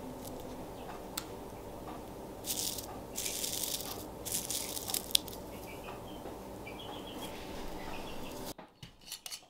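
Freeze-dried kale and herbs crackling and crunching as they are rubbed and crumbled in a hand, in a few short bursts in the middle, over a steady low hum that cuts off near the end.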